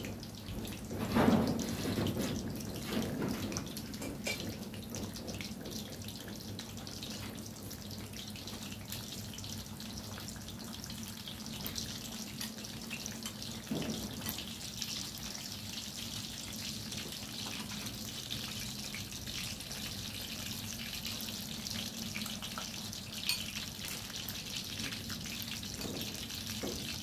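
Chopsticks and spoons clicking lightly against ceramic bowls while people eat, over a steady hiss and a low hum, with one louder bump about a second in.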